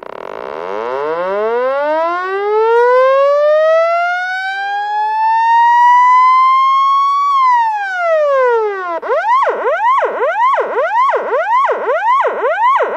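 Loud electronic police siren: one slow wail rising over about seven seconds, then falling, then switching about nine seconds in to a fast yelp of about two sweeps a second.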